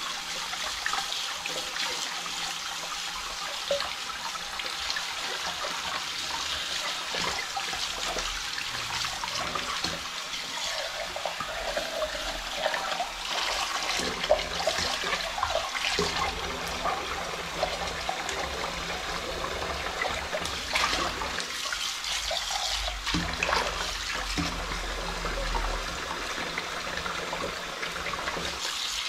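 Kitchen faucet running steadily into a sink while a ceramic mug is washed by hand under the stream, with a few light knocks from the mug against the sink or tap.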